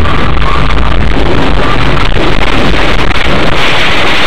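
Loud, distorted road noise inside a car driving on a wet, flooded road, picked up by a dashcam microphone: a steady rush of tyre spray, wind and engine.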